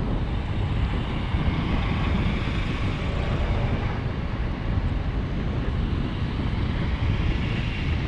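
Wind buffeting the microphone over a steady low rumble.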